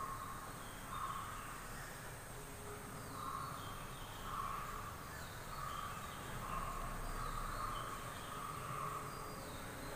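Crows cawing in a series of short calls, roughly one a second, coming closer together a little past the middle.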